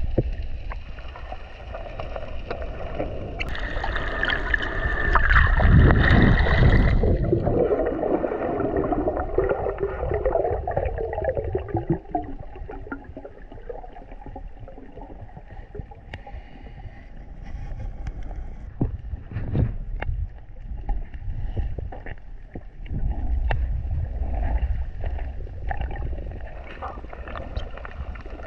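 Underwater sound picked up by a camera held by a snorkeler: a low, muffled water rumble with bursts of bubbling and gurgling. The bubbling is loudest about four to seven seconds in, and scattered sharp clicks come later.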